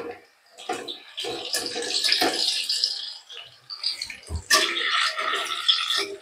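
Lauki koftas sizzling in hot oil, in two loud surges, one about a second in and one about four and a half seconds in. A metal spoon clicks against the pan at the start, and there is a dull thump just before the second surge.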